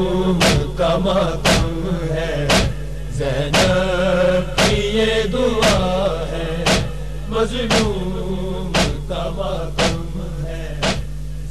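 A man chanting a noha (Shia mourning lament) through a sound system. A sharp slap about once a second keeps time, like matam chest-beating, over a steady electrical hum.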